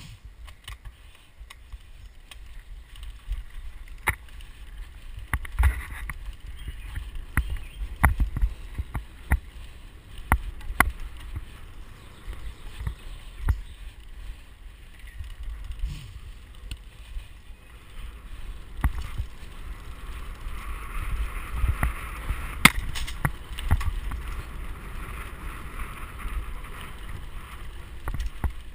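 Mountain bike ridden fast over a dirt forest trail, heard from an onboard camera: a steady low rumble of tyres and wind, broken by frequent sharp knocks and rattles as the bike jolts over roots and bumps.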